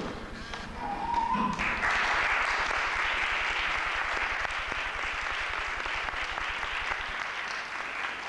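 Audience applauding, swelling in about two seconds in after a brief rising tone.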